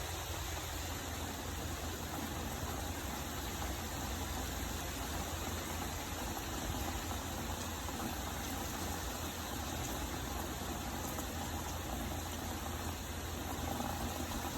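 Steady rain noise with a low, even rumble underneath.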